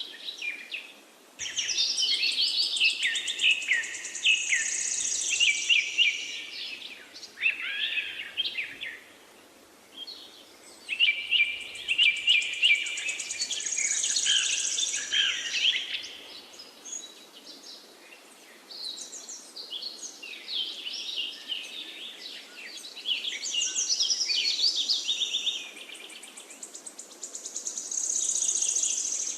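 Songbirds singing and chirping in busy overlapping phrases of rapid trills and high whistles, coming in bursts with brief lulls.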